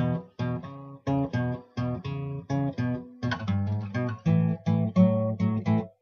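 Background music: guitar chords strummed in a steady rhythm, about two a second.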